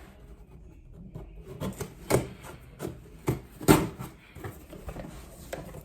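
A cardboard box being cut open with the metal file of a nail clipper: irregular scraping and rubbing strokes against the tape and cardboard, with a few sharper scrapes about two seconds in and again near the four-second mark.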